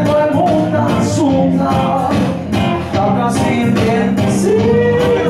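Live band music: two electric guitars strummed in a steady rhythm while a man sings into a microphone, holding a long note near the end.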